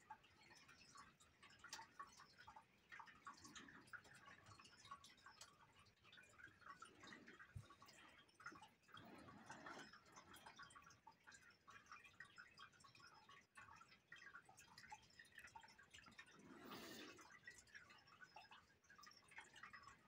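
Faint, quick scratching strokes of a colored pencil shading on paper.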